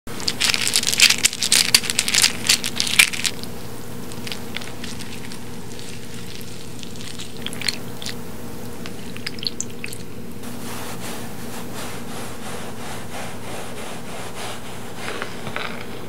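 Kohakuto crystal jelly candies rattling and clicking together in a hand for about three seconds, the loudest part. Then a few sparse wet clicks as a wooden spoon stirs popping boba, and near the end a soft scraping as a knife cuts a roll of cotton candy, all over a steady low hum.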